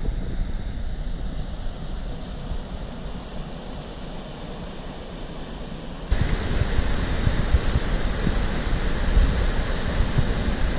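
Low wind rumble on the microphone as the canoe moves on the river. About six seconds in, this cuts abruptly to the louder, steady rushing of a waterfall and whitewater rapids.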